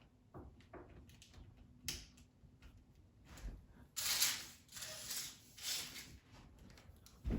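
A VGA cable's plug being handled and fitted into a laptop's port: scattered small clicks and knocks, with a few louder rubbing swishes about four to six seconds in.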